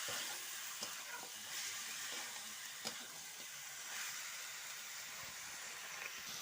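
Chicken frying in oil with spice paste in a pan, a steady sizzle, with a few sharp clicks of a spatula stirring against the pan in the first three seconds.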